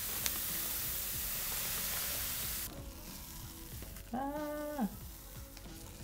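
A stream of plastic bingsu beads pouring from a bag into a tub of slime, a steady hiss that cuts off suddenly about two and a half seconds in. Then faint background music, a short pitched sound about four seconds in, and light ticking of beads under the fingers.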